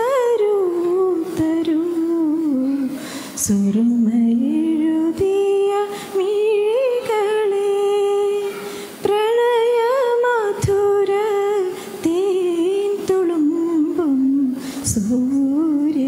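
A woman singing a slow song into a microphone: long held notes with vibrato, in phrases broken by short breaths.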